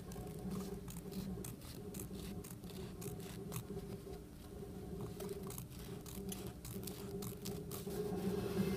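Fabric scissors snipping through woven cotton along a seam allowance, trimming it down: a run of quick, irregular blade clicks over a low steady hum.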